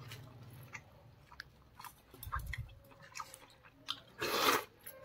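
A person chewing a mouthful of mutton curry with its fat: soft wet chewing and small mouth clicks, with a brief louder rush of noise about four and a half seconds in.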